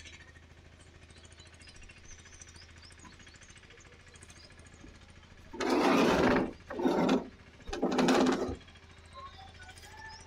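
Faint bird chirps over a low steady hum, broken a little past halfway by three loud, rough bursts of rapidly pulsing noise, each under a second long, of unknown source.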